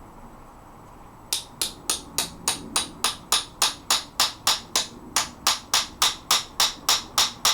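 Steady, evenly spaced hammer taps, about three a second, starting a little over a second in, driving a locking wedge home in an old wrought-iron locksmith's vise.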